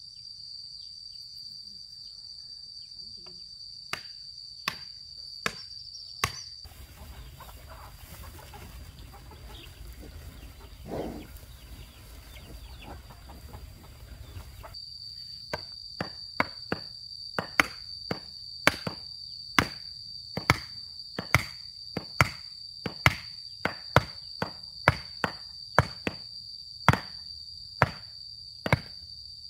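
Hard, sharp strikes of a hand tool into the ground, a few at first and then in a steady run of nearly two a second through the second half, over a steady high drone of insects. In the middle the drone drops out under a low rumble and a rooster crows once.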